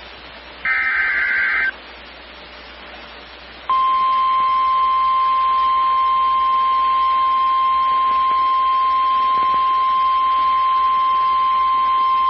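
Emergency Alert System SAME header data burst, about a second of rapid two-tone data, ending near the start. About two seconds later the steady 1050 Hz NOAA Weather Radio warning alarm tone starts and holds unbroken. It marks the start of a new weather warning broadcast.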